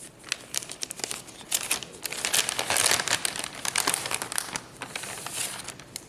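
Silver anti-static bag crinkling as it is handled and opened, a run of crackly rustles that is densest through the middle.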